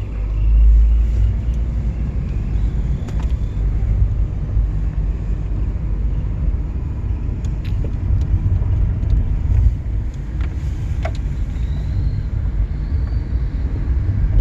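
Steady low rumble of road and wind noise from a car driving along at low road speed, with a few faint clicks.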